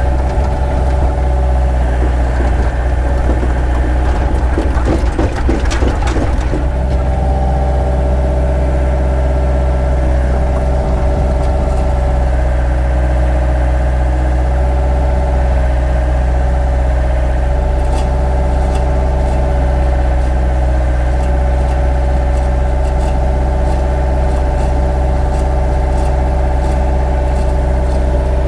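Hyundai mini excavator's diesel engine running steadily close by, with a steady whine over the engine drone as the hydraulic boom and bucket are swung into position. A short stretch of crackling noise comes about four to six seconds in.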